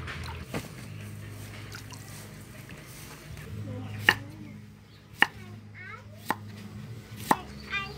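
Cleaver chopping a cucumber on a wooden chopping block: sharp single knocks about a second apart, starting about four seconds in.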